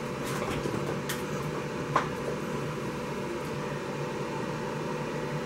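Steady hum of a powered-up K40 CO2 laser cutter idling, its fans and power supply running, with a faint constant tone. A few faint clicks, and one sharper click about two seconds in.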